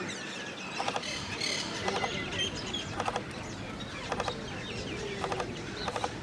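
Woodpecker knocking on wood in short bursts of a few rapid taps, about one burst a second, with small birds chirping in the background.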